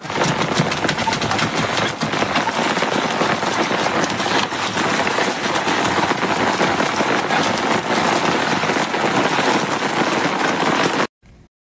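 Heavy rain pouring onto a concrete rooftop: a dense, steady patter dotted with sharp drops and splashes. It cuts off suddenly near the end.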